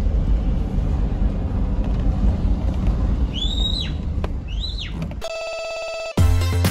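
Low, steady rumble of a car driving slowly up a rough dirt lane, heard from inside the car, with two short rising-and-falling whistles about three and four and a half seconds in. After a brief buzzing tone, background music with a strong beat starts about six seconds in.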